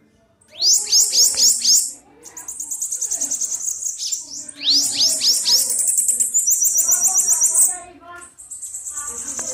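Bananaquit singing: a run of about five high, thin downslurred notes followed by a rapid, high buzzy trill, the phrase given twice, with another trill starting near the end.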